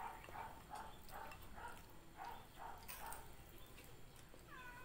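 Faint animal calls repeating evenly, about two to three a second, then one call that falls in pitch near the end.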